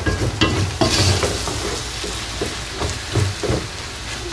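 Minced meat and spices sizzling in a hot pot while a wooden spoon stirs, scraping and knocking against the pot at an uneven pace.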